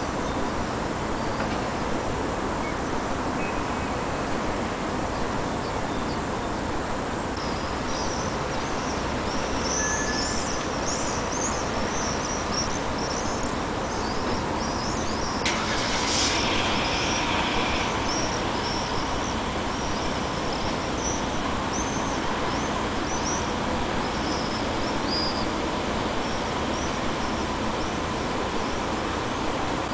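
Tit nestlings cheeping in a fast, high-pitched chatter that starts about a quarter of the way in and stops near the end, over a steady hum of traffic. A short, louder rush of noise breaks in about halfway.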